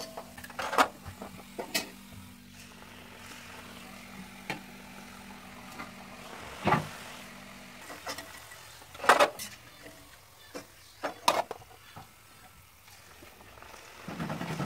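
Hot oil sizzling as rice-flour murukku deep-fry in a pan, with a few sharp clinks of a metal slotted spoon against the pan and steel plate. The sizzling gets louder near the end.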